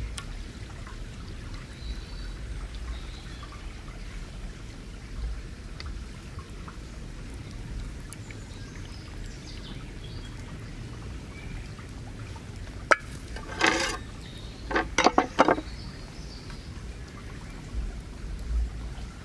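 Thick béchamel sauce being poured from a cast-iron pan into a clay dish, with faint birdsong over a low outdoor rumble. About two-thirds of the way in come a sharp click and two clusters of loud scraping.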